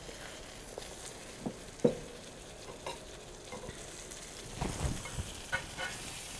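A NY strip steak sizzles in a hot Lodge cast iron pan as it is flipped with metal tongs, which click and scrape against the pan. There is a sharp clank about two seconds in and a few knocks near five seconds in.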